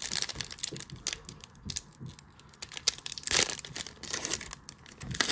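Foil wrapper of a 2023 Donruss football card pack crinkling and tearing as it is ripped open by hand, with a louder crackle about three seconds in.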